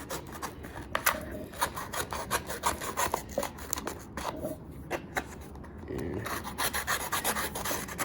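Dust cap being cut off a subwoofer's cone: a run of irregular scratchy cutting and rasping strokes, thinning out briefly around the middle.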